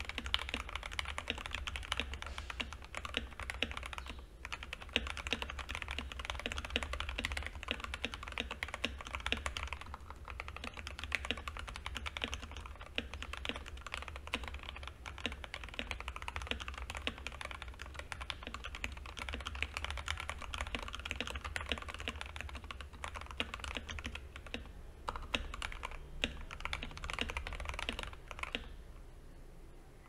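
Fast typing on an Anne Pro 2 60% mechanical keyboard with lubed and filmed Gateron Red linear switches, a stock steel plate, stock PBT keycaps, and tape and case-foam mods. A dense, continuous run of keystrokes with a couple of brief pauses, thinning out and stopping near the end.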